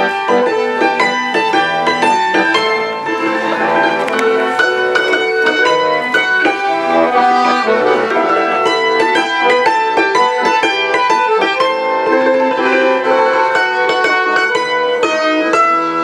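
Folk music played on a hammered dulcimer and an accordion: quick struck-string notes ringing over held accordion tones.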